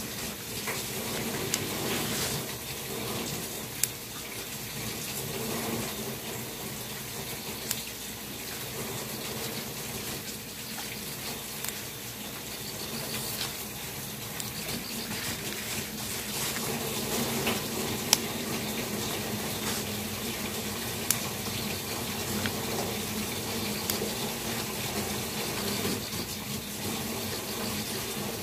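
Leafy vegetable stems being peeled by hand, with a few sharp snaps as they break, over a steady rushing noise like running water.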